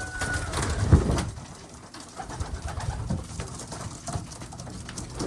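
Racing pigeons cooing in a loft: several low coos, the loudest about a second in, with a few more later.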